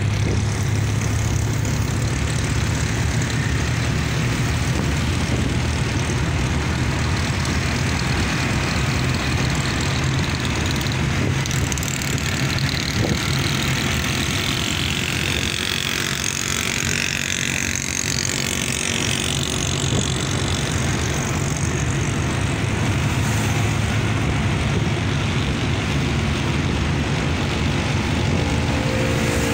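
Steady engine drone and road noise of a moving vehicle, heard from inside it in traffic. A higher hiss rises and fades about halfway through.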